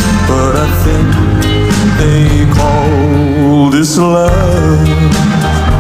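Live band playing a slow, retro-style love ballad, with long held notes that waver with vibrato and a short falling slide about four seconds in.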